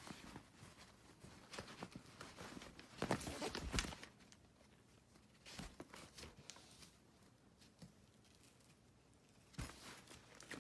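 Rustling and scattered knocks of a collapsible fabric storage box being handled, loudest in a burst about three to four seconds in, with a sharp knock near the end.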